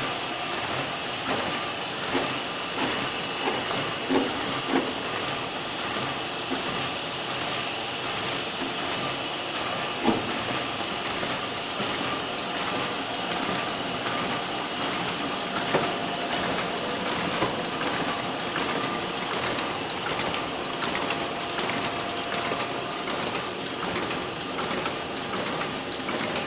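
Stahl KC 66 paper folding machine running, with a steady whirr of rollers and a rapid run of fine clicks as sheets feed and fold. A few louder knocks stand out now and then.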